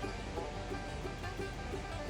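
Background music with plucked strings, banjo-like, at a steady moderate level.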